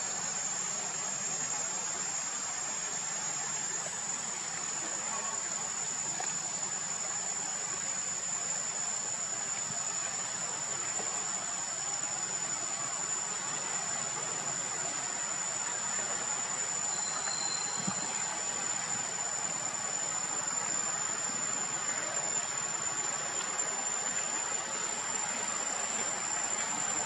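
Steady chorus of insects in the surrounding forest: one continuous high-pitched buzz over an even hiss, unchanging throughout.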